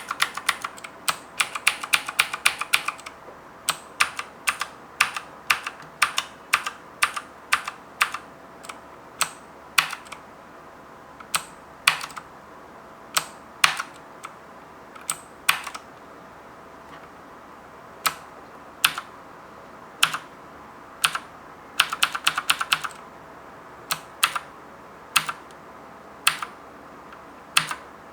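Abko HACKER K600 Hades mechanical keyboard with clicky blue switches being typed on: quick runs of keystrokes at the start and again about 22 seconds in, with single key presses one or two a second in between.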